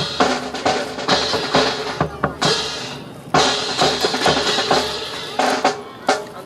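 Drum-led music: snare and bass drum strokes over sustained pitched tones, with short breaks about two and three seconds in.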